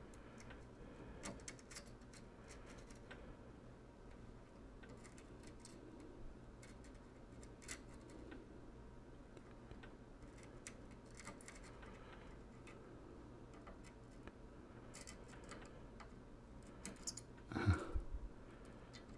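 Faint scattered ticks and crackles of a soldering iron working copper desoldering wick on a circuit-board pad, over a low steady hum. A short louder sound near the end.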